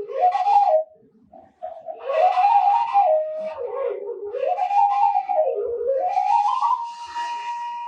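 Washint, the Ethiopian end-blown bamboo flute, playing a solo melody with sliding, ornamented notes and a breathy tone. After a short pause about a second in, a flowing phrase rises and falls and settles on a long held high note near the end.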